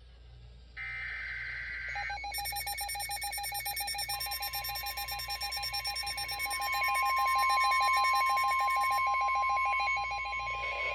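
Emergency Alert System warning tones. A short screeching digital data burst (the last of the SAME header bursts) comes first, then a rapidly pulsing alarm tone starts. About four seconds in, a steady high tone joins the pulsing alarm, and both grow louder for a while before easing back.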